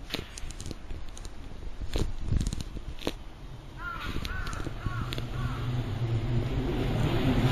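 A crow cawing four times in quick succession, about halfway through. Underneath, the low rumble of an approaching electric train grows steadily louder toward the end.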